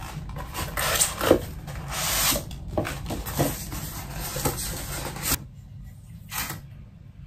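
Paper and plastic packaging rustling and crinkling in irregular bursts as a mug is unwrapped by hand, stopping about five seconds in.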